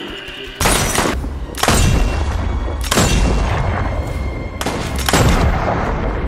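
Rifle gunfire: four loud shots or short bursts spread over several seconds, each trailing off in an echo, with a steady low rumble underneath.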